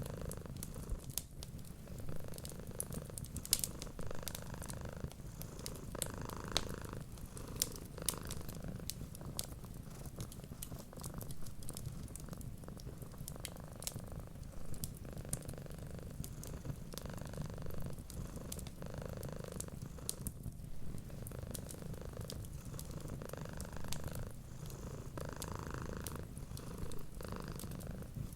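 A cat purring steadily, a low continuous rumble that swells with each in-and-out breath every second or two, mixed with the scattered sharp pops and crackles of a fireplace.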